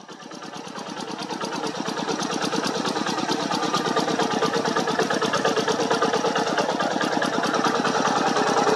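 Single-cylinder Kubota diesel engine of a two-wheel hand tractor running with a rapid, even beat, growing louder over the first few seconds and then steady.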